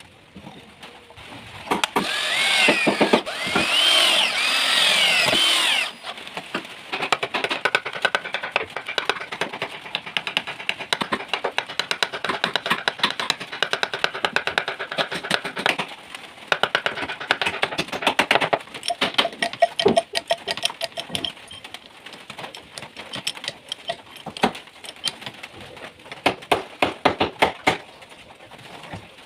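A power tool with a sanding drum runs against wood for a few seconds, its pitch rising and falling under load. It is followed by many irregular clicks and knocks.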